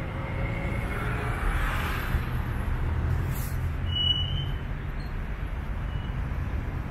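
Steady rumble of car traffic around a city square, with a passing car's hiss about a second in and a brief high chirp about four seconds in.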